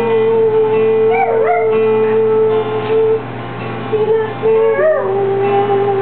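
Guitar music with singing: a man holding long steady notes while a Chihuahua howls along, its voice swooping up and down twice.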